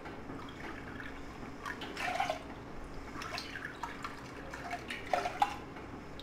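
Water poured from a glass cup into a stainless steel pot, splashing in a few short pours.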